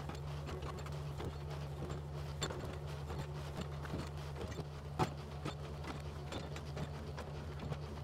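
Yanmar mini excavator's diesel engine running steadily as it digs a trench, with irregular clanks and knocks of the bucket and stones, one sharper knock about five seconds in.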